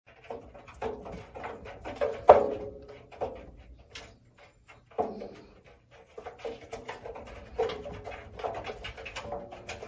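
Kitten meowing repeatedly from inside a front-loading washing machine's drum, with scattered taps and knocks; the loudest cries come about two and five seconds in.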